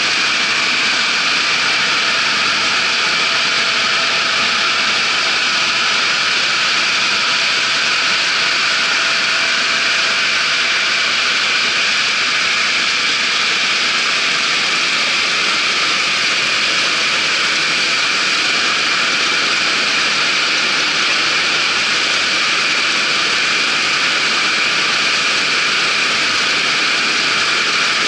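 Claas Dominator 88 combine harvester running steadily, a loud, even mechanical rush with a faint high whine held throughout.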